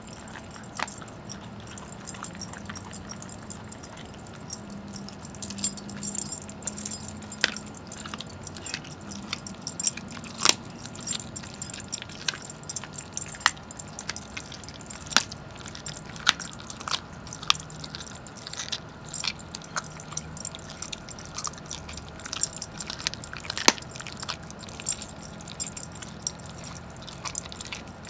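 Greyhound chewing and gnawing a raw turkey leg, with irregular sharp cracks and crunches of bone and clinking of the metal tags on his collar.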